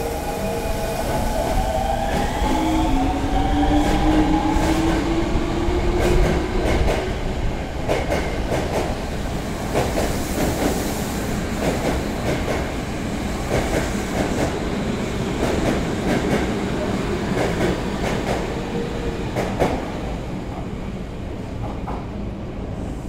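Osaka Midosuji Line subway train pulling out of the station: the traction motors' whine rises in pitch over the first few seconds as it accelerates, then the wheels clack over the rail joints in a steady rhythm as the cars pass, fading near the end.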